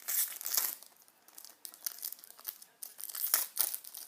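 Hockey card pack wrapper being torn open and crinkled by hand: two loud rips, one at the start and one about three seconds in, with lighter crinkling between.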